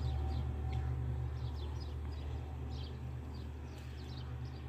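Steady low hum of a honey bee colony swarming over an open hive frame, with small birds chirping in short high calls several times over it.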